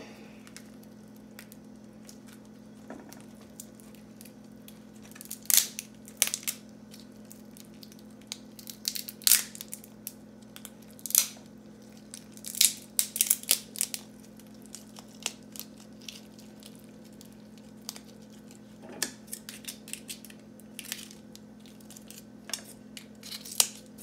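Lobster tail shells cracking and crunching as they are pulled apart by hand: irregular crisp snaps a second or more apart, a quick cluster of them around the middle, over a faint steady hum.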